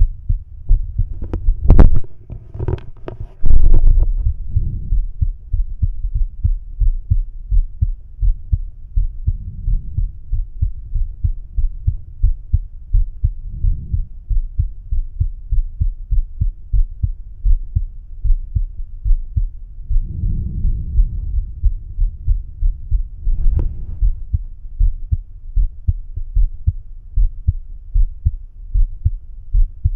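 A man's heartbeat heard through a stethoscope bell: a steady run of low, dull lub-dub thuds. A couple of seconds in, a loud scratchy rustle of the chestpiece shifting against the skin covers the beats, with a shorter one about three quarters of the way through.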